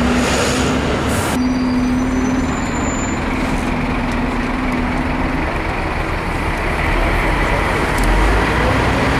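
Loud city street traffic: a steady rumble of passing road vehicles, with a heavy vehicle's engine humming for a few seconds and a deeper rumble near the end.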